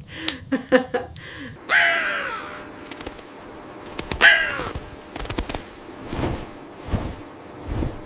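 Two harsh animal calls, each falling in pitch, about two and a half seconds apart, followed by a few soft low thumps.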